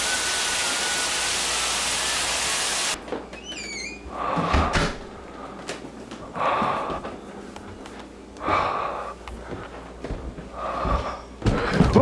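Shower spray running as a loud, steady hiss that cuts off suddenly about three seconds in. It is followed by four short hissing rushes, about two seconds apart.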